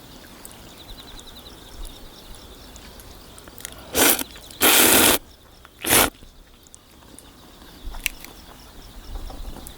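Three loud slurps of ramen noodles about four to six seconds in, the middle one the longest.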